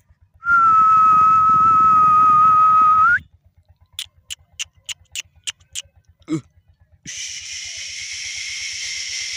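A person whistles one long, steady note that lifts slightly at its end, then makes a quick series of about seven sharp clicks. A brief falling sweep follows, then a steady hiss near the end.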